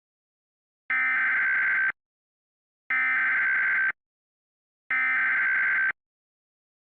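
Emergency Alert System SAME header tones: three identical bursts of digital data tones, each about a second long with a second of silence between them. They carry the encoded alert that precedes the spoken emergency message.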